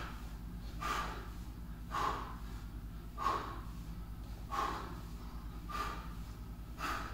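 A man breathing hard during bodyweight squats: short, forceful exhales, six of them about a second and a quarter apart, one with each squat.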